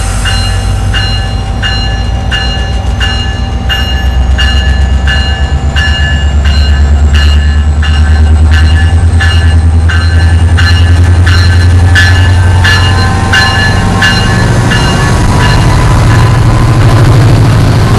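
Metrolink MP36 diesel-electric locomotive pulling out of the station: a heavy, steady diesel rumble that grows louder about four seconds in as it takes power and starts rolling. A bell rings evenly about twice a second throughout, and a faint whine slowly rises in pitch.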